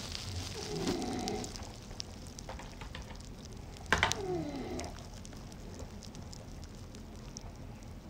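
Faint crackling rustle of plastic toys being handled, with a single sharp knock about four seconds in, followed by a short, falling, voice-like sound.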